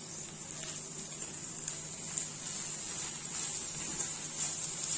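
Onion-tomato masala sizzling steadily in a kadai on the stove, with a spatula scraping and stirring through it, more often in the second half.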